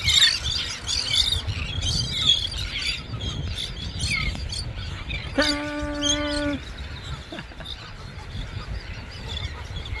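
A flock of gulls calling as they fly, many overlapping squawks for the first three seconds, then fewer, over a steady rumble of wind on the microphone. Just past the middle, a single steady held tone lasts about a second.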